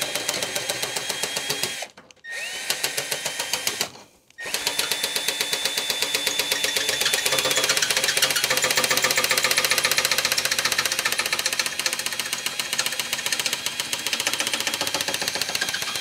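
Drill-powered nibbler attachment punching its way through sheet metal: a fast, even chatter of tiny punches over the drill motor's steady whine. It stops briefly twice in the first few seconds, with the whine spinning back up each time, then cuts without a break, the drill turning at low speed.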